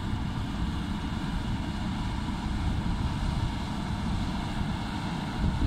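Caterpillar 120K motor grader's diesel engine running steadily under load as the machine drives and blades bedding across a coal stockpile base, a low, even rumble.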